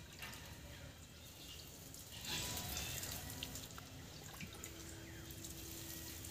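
Water being scooped by hand from a plastic bucket and sprinkled over seedlings, with light splashing and dripping. The loudest splash comes about two seconds in.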